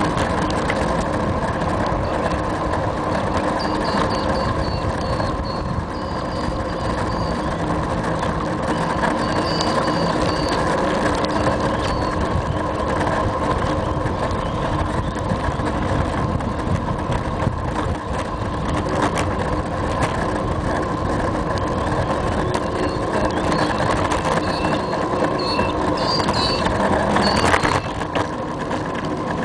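Steady rumble and rattle of a bicycle rolling along a paved path, picked up by a camera mounted on the bike. Faint short high chirps come now and then, and there is a bump near the end.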